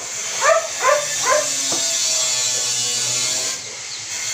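A dog barking three times in quick succession about half a second in, followed by a low steady hum.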